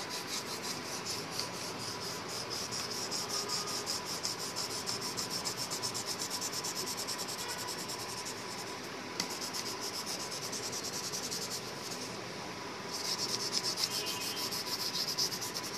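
A blue coloured pencil shading lightly on paper in quick back-and-forth strokes, a steady scratchy rubbing that stops briefly twice, about halfway through and again near the end.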